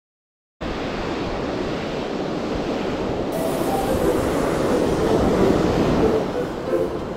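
Ocean surf washing steadily onto a rocky beach, coming in abruptly just after the start, with some wind on the microphone.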